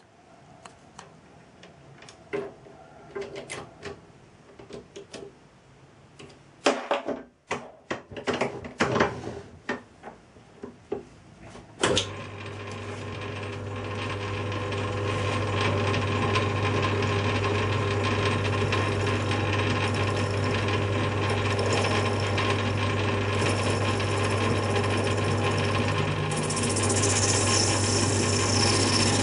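Clicks and knocks as a brass part is fitted into a lathe's three-jaw chuck and tightened. About twelve seconds in, the Myford lathe starts and runs with a steady hum while the tool faces the brass part, and a higher cutting hiss joins near the end.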